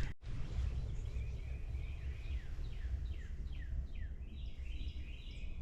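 Small birds chirping, including a quick run of short falling notes about halfway through, over a steady low rumble of outdoor background noise.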